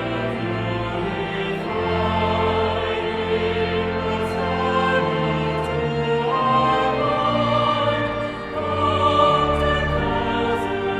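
Choral music: a choir singing slow, held chords with instrumental accompaniment.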